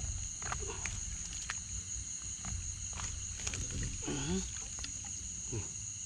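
Steady high-pitched insect chorus with scattered clicks and rustles, and a brief wavering voice-like sound about four seconds in.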